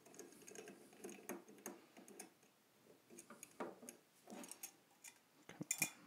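Screwdriver backing a Torx bolt out of an aluminium electronics case: faint, irregular small clicks and ticks of metal on metal.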